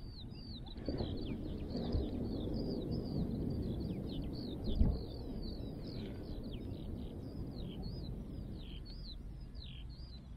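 A flock of small birds chirping busily, several quick high chirps a second, over a low steady rumble. A dull thump comes about five seconds in, with a softer knock before it.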